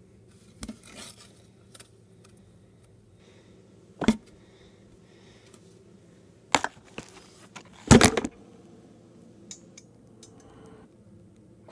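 Handling noise with a few sharp separate knocks, spread irregularly; the loudest, about eight seconds in, has a short rattle after it.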